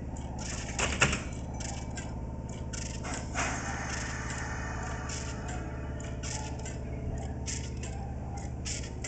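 Kintetsu 8400-series electric train standing at the platform at departure: a steady hum from the train, a sharp thump about a second in and a hiss of air about three seconds in that fades away, with scattered clicks throughout.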